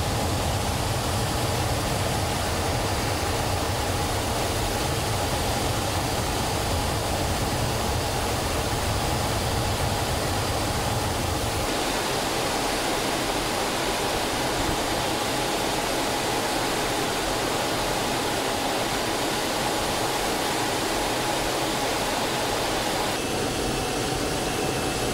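Steady noise inside the cockpit of an L-39 Albatros jet trainer in flight: rushing air and the even running of its single AI-25TL turbofan, with a faint steady tone in it. About halfway through, the low rumble drops away.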